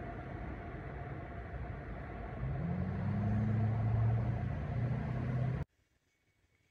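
An engine running over a steady rushing noise; about two seconds in its note grows louder and rises slightly in pitch. The sound cuts off suddenly near the end.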